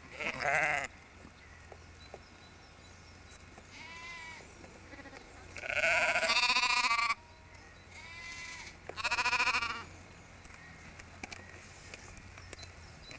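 Sheep bleating: about five separate bleats, some loud and close, some fainter, the longest lasting over a second about six seconds in.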